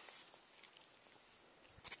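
Faint rustling of grass and handling noise as a freshly caught small fish is taken off the line, with one short, sharp rustle or slap near the end.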